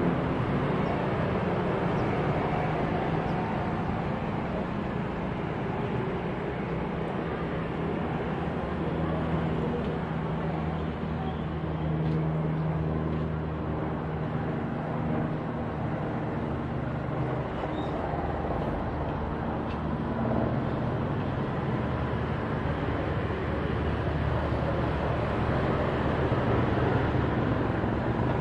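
Cessna 172P Skyhawk's four-cylinder piston engine and propeller droning steadily as the plane flies overhead.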